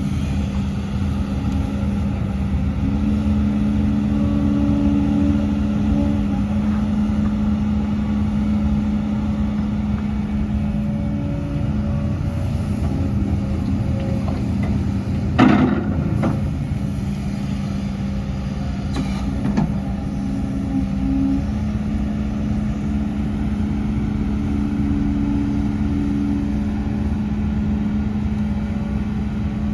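Hidromek HMK230LC excavator's diesel engine running steadily under working load, its note shifting as the hydraulics work. A sharp bang about halfway through, the loudest sound here, and a lighter knock a few seconds later.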